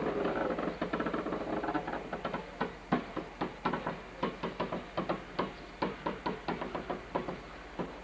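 Railway wheels knocking over rail joints and pointwork as a train rolls slowly through the yard, a sharp clack about three times a second. A jumble of higher tones fades out over the first two seconds.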